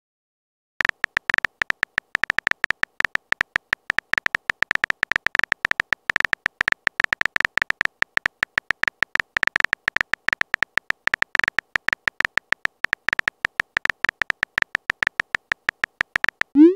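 Phone keyboard typing sound effect: rapid, irregular key clicks, each with the same bright tone, starting about a second in. Near the end a short rising tone sounds.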